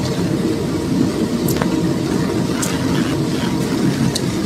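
Steady low engine-like rumble, with a few light clicks of a spoon and chopsticks against a ceramic noodle bowl.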